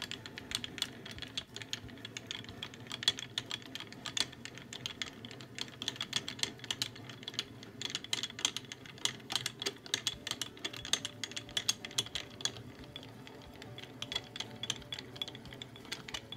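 Harbor Freight mini mill's table being cranked along by hand: a dense run of small, uneven clicks and rattles from the handwheel and leadscrew as the table traverses under a dial test indicator.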